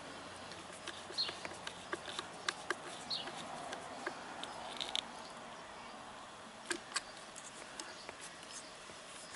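Screwdriver working a motorcycle battery's terminal screw: scattered light metallic clicks and scrapes, with a sharper pair of clicks about seven seconds in.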